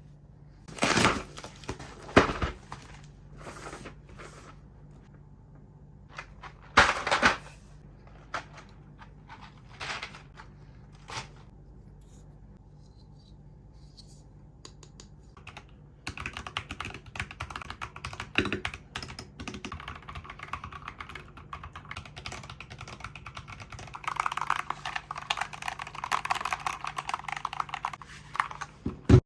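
Mechanical keyboard fitted with MSA profile keycaps being typed on. Scattered single key clacks and short clusters at first, then continuous fast typing from a little past halfway, getting louder and denser near the end.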